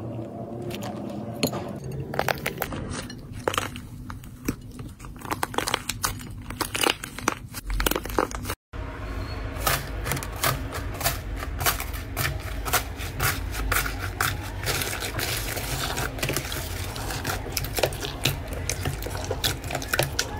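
Slime worked by hand, crackling and popping with many small clicks and snaps as it is stretched and squished. First a cream slime with crunchy bits mixed in, then, after a brief break about eight seconds in, a blue slime covered in foam beads being pressed and kneaded.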